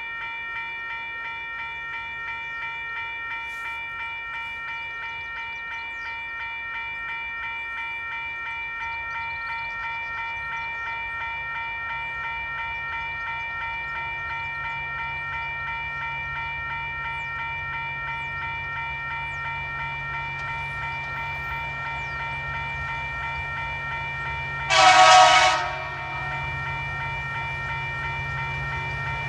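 Diesel freight locomotives approaching, their low rumble growing slowly louder, over the steady high ringing of level crossing warning bells. Near the end the lead locomotive sounds its horn in one loud blast about a second long.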